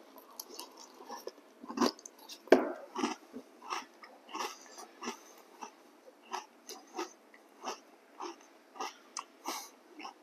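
A person chewing a mouthful of crunchy chocolate crispies cereal close to the microphone: a run of short crunches about two a second, the loudest a little after two seconds in.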